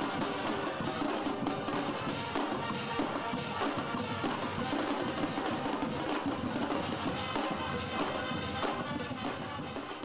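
Football supporters' brass band playing as it marches in: trombones and trumpets over bass drums and cymbals, with a steady driving beat.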